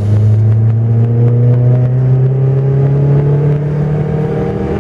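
VAZ 1.6-litre eight-valve petrol engine, fitted with an enlarged 56 mm throttle body, pulling hard in second gear under full throttle. Its pitch rises steadily as the revs climb, heard from inside the car's cabin.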